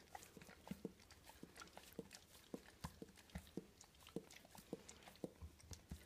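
Dog mouthing and licking: faint, quick wet clicks of its tongue and lips, about two a second.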